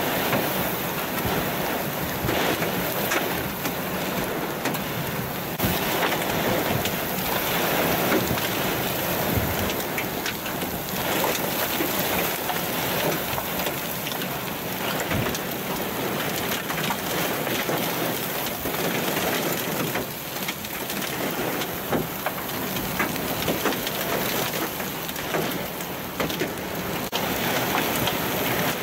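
Heavy wind-driven rain and hail from a severe thunderstorm pelting down: a dense, steady hiss with many sharp ticks of impacts.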